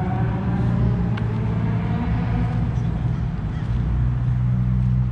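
A car engine running at a steady idle: a low, even rumble.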